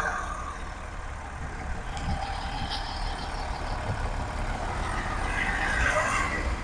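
Audi Q7's V6 diesel engine idling just after being started, its level dropping in the first half second and then holding as a steady low rumble.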